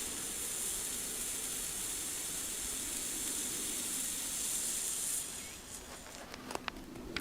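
Handheld fountain firework burning with a steady spraying hiss that dies away about five seconds in, leaving a few faint crackles and clicks near the end.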